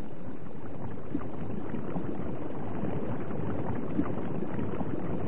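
Steady underwater ambience: an even watery rush with faint scattered crackles.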